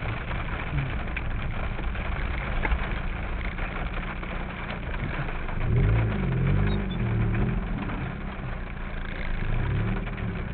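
Car driving through rain, heard from inside the cabin: a steady rush of rain and tyre noise with the engine's hum underneath. A low, wavering hum swells about six seconds in and again near the end.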